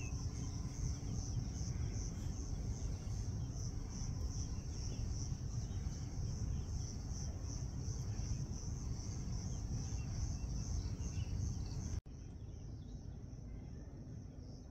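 Insects chirring outdoors in a steady, pulsing high-pitched trill over a low rumbling noise. About twelve seconds in, the sound drops suddenly in level and the trill carries on more faintly.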